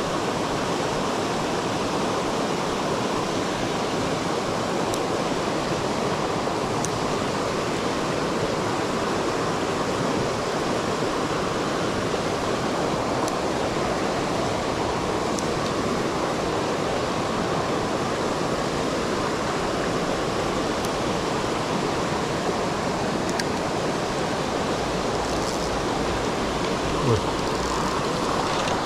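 Shallow, fast-flowing stream rushing steadily over stones in a riffle, with a short low thump near the end.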